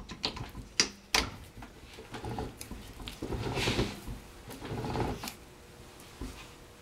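Eaton Posi limited-slip carrier turned back and forth by hand on a splined shaft in a vise, to feel the preload of its newly shimmed clutch packs. A few sharp metal clicks come in the first second, then three or four longer scraping, dragging sounds as the case is worked round against the clutches.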